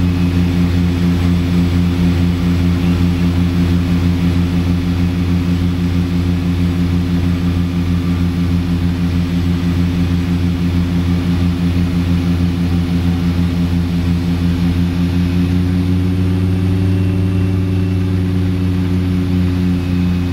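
Light high-wing aircraft's propeller engine running steadily, heard from inside the cabin, with a slight rise and fall in pitch about three-quarters of the way through.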